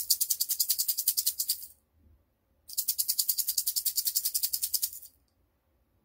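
Handmade resin heart shaker filled with small beads, rattling in two quick bursts of fast, even shaking, the second one longer.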